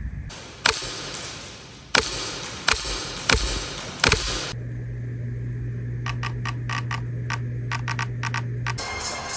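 HPA airsoft rifle with a Polarstar engine firing five single shots in about three and a half seconds, each a sharp pop with a reverberant tail. About four and a half seconds in the shots stop and a steady low hum starts, with a run of light, quick clicks, about five a second, in the last three seconds.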